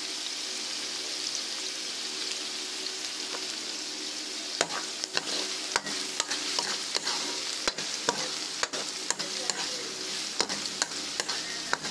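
Chopped garlic and onion sizzling in hot oil in a wok. From about four and a half seconds in, a spatula clicks and scrapes against the pan as they are stirred.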